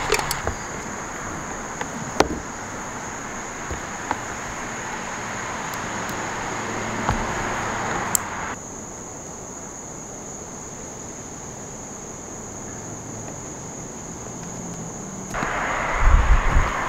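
Steady high-pitched drone of insects over an outdoor background hiss, with a few sharp clicks from hands working tape and cables. The background hiss drops away abruptly about halfway through and comes back near the end.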